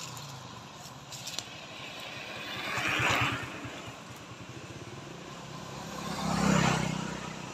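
Two motor vehicles pass one after the other, each growing louder to a peak and then fading, about three and a half seconds apart. The first has a fast low engine throb.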